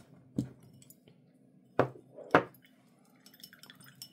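A watercolour brush clinking three times against hard containers in the paint set-up, the last clink the loudest, followed by a few faint small clicks near the end.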